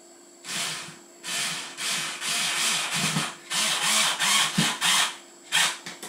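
Screwdriver driving a screw into the plastic housing of a dishwasher's combined heater and pump unit, in a run of about ten short turning strokes, roughly two a second.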